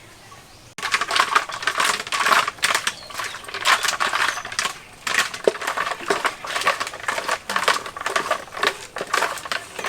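Wooden hand churner (ghutni) twirled hard in a bucket of buttermilk with yogurt and ice pieces, making a rapid, irregular clatter of ice and wood knocking. It starts suddenly about a second in.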